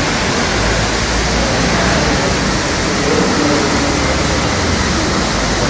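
Steady outdoor rushing noise with a heavy low rumble.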